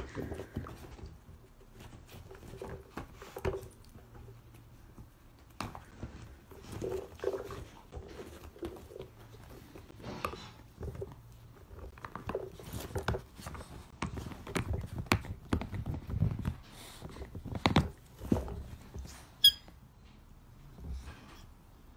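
Dachshund chewing and pushing a hard plastic toy about on a leather sofa: irregular clicks and knocks of plastic, with duller thumps as the toy and paws hit the sofa, busier in the second half.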